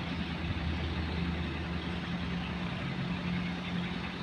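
Hino coach's diesel engine idling steadily with a low, even hum.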